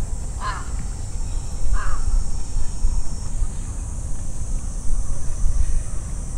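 A crow cawing twice, about half a second and two seconds in, over a low rumble and a steady high hiss.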